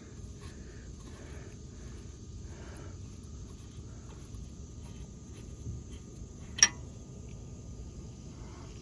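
Steady low background hiss with a faint high continuous tone, and a single sharp metallic click about two-thirds of the way through, the loudest sound here.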